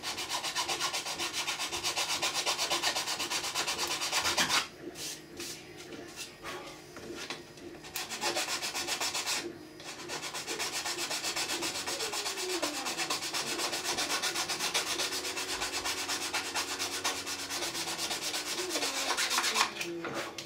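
Needle file rasping across 3D-printed ABS plastic in rapid short strokes, dressing down a welded crack repair. The filing stops for a few seconds about four and a half seconds in, pauses briefly again near ten seconds, then runs on until just before the end.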